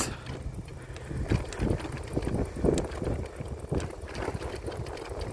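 Wind rumbling on the microphone while riding a bicycle along an asphalt road, with tyre noise: an uneven low rumble without a steady engine tone.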